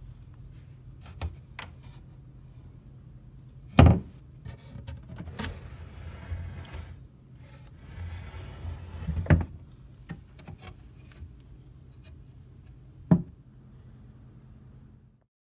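Wooden cabinet doors and a pull-out drawer of a homemade entertainment stand being opened and shut: a series of sharp wooden clunks, the loudest about four and nine seconds in, with a sliding rub just before the second, over a steady low hum.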